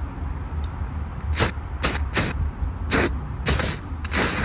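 Aerosol can of copper grease spray being sprayed onto car battery terminals in about six short hissing bursts, the last one longest, coating the terminals against oxidation.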